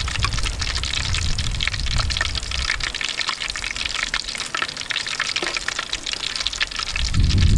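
Battered shrimp fritters deep-frying in hot oil in an aluminium pan: a steady sizzle with dense crackling. Beneath it runs a low rumble, heavier near the end.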